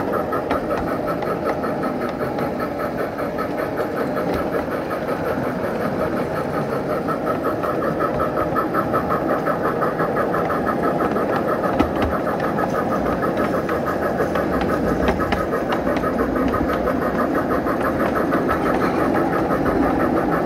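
Electric steam-outline locomotive's onboard Phoenix sound card playing simulated steam exhaust chuffs in a fast, even rhythm, with the locomotive under throttle on a grade. A steady rumble of the train running on the track lies beneath.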